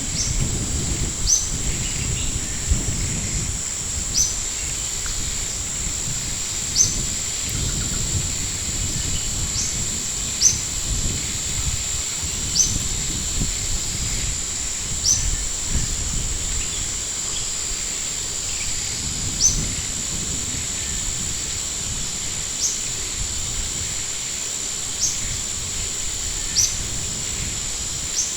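Outdoor ambience: a bird giving short, high, rising chirps every couple of seconds over a steady high-pitched whine and a low rumble of wind on the microphone.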